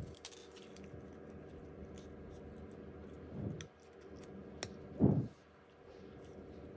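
Small-tool and handling sounds from work on a smartphone: a few sharp clicks and two dull knocks, the louder one about five seconds in, over a steady low hum.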